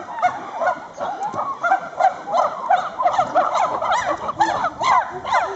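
Chimpanzees calling together: many overlapping rising-and-falling hoots and cries in quick succession.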